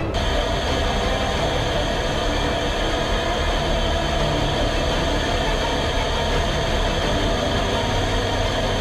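Steady cockpit noise of a fighter jet in flight: engine and rushing air, with several steady whining tones on top.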